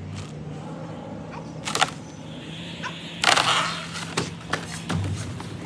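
Sharp knocks and cracks of wood, with a brief rustling crash of branches and leaves about three seconds in, over a low steady hum.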